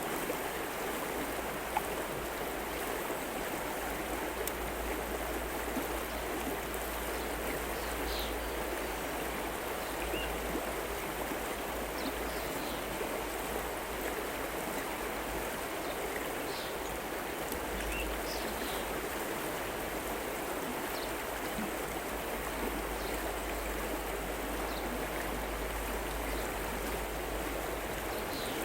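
River water flowing with a steady rushing sound. Faint short high chirps come and go over it.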